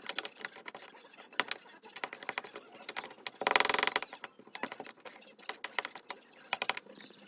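A quick, irregular series of sharp clicks and taps from small hard objects, with a dense rattling burst about three and a half seconds in.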